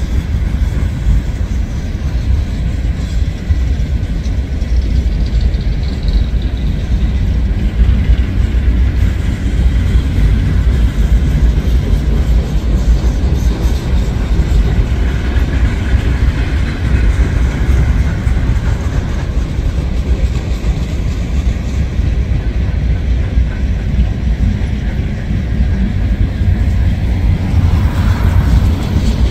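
Norfolk Southern freight train of open-top coal cars rolling past close by: steady rumble of steel wheels on the rails.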